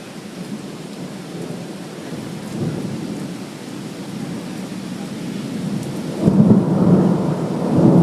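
Thunderstorm: steady rain with rumbling thunder, which swells into a loud low rumble about six seconds in and again near the end.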